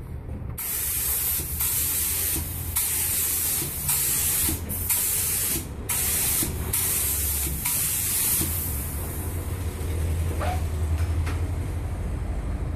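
Activator being sprayed onto hydrographic film floating on water, hissing in a series of short bursts that stop about eight seconds in. A steady low hum runs underneath.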